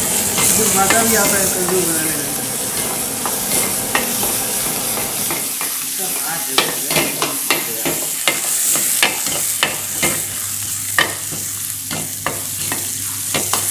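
Garlic and chopped greens sizzling in hot oil in a wok while a steel ladle stirs and scrapes them. From about halfway through, the ladle knocks sharply against the pan several times in quick succession.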